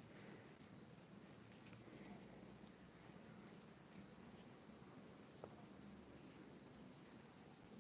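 Near silence: a faint steady high-pitched background sound, with one light tick about five and a half seconds in.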